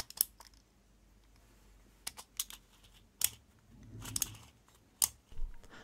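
Handling noise from a 3D-printed plastic lock turned over in the hands: a handful of short, sharp clicks and taps, with a soft rubbing sound about four seconds in.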